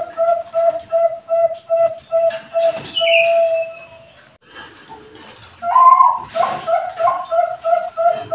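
Bangkok-strain zebra dove (perkutut bangkok) singing: runs of short, rapid coos about three a second, a longer held coo about three seconds in, a short pause, a louder higher note about six seconds in, then the rapid coos again.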